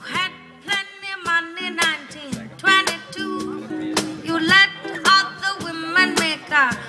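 Music: female voices singing in harmony without clear words over a strummed guitar accompaniment.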